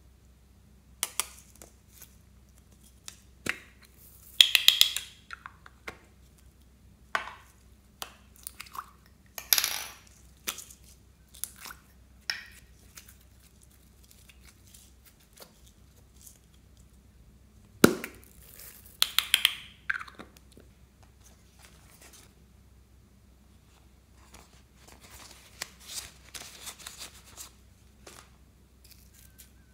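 Hands handling small plastic makeup containers and slime at close range: scattered sharp plastic clicks and taps, with short sticky, crackling squishes as the contents are squeezed out, separated by quiet. The sharpest click comes about eighteen seconds in.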